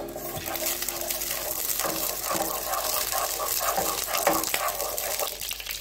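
Fennel seeds sizzling in hot sesame oil in a pan, stirred with a wooden spatula.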